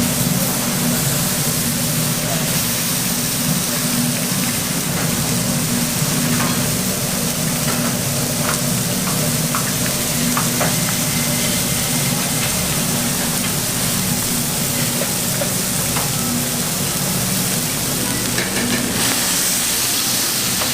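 Food sizzling steadily on a hot grill over a steady low hum, with a few light clicks.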